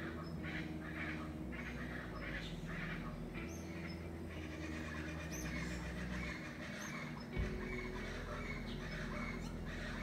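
Birds calling at dawn: a steady run of repeated harsh calls with a few short high chirps. Underneath are low sustained tones that change every second or two, and a single low thump about seven seconds in.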